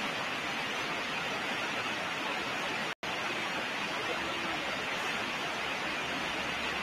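Steady background hiss with no speech, cut off completely for an instant about three seconds in.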